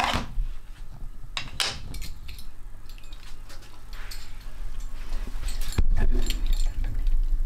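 A few light clinks and knocks of kitchenware handled around a metal baking tray, over a low rumble of handling noise.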